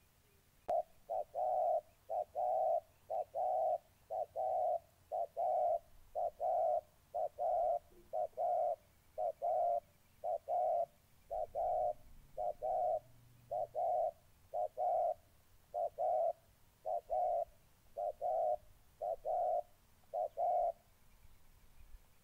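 Spotted doves cooing: a long run of short paired coos, about one pair a second, stopping near the end. It is territorial cooing between rivals, a caged decoy and a wild dove eager to fight.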